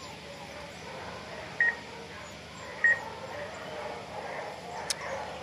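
Two short electronic beeps about a second apart, each a single high tone, over a faint steady outdoor background, with a small click near the end.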